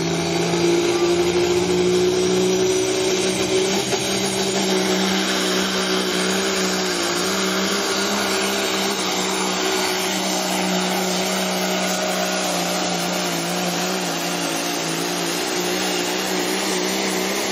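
Diesel engine of a 1983 Mack Superliner pulling semi running hard under full load as it drags the pulling sled. Its pitch climbs slightly in the first couple of seconds, then holds steady with a slight waver.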